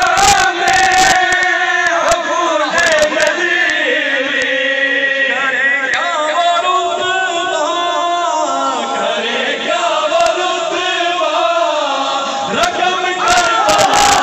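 A man chanting an Urdu Shia devotional recitation (manqabat) into a microphone, with a crowd of men chanting along. Clusters of sharp hits sound in the first half-second and again near the end.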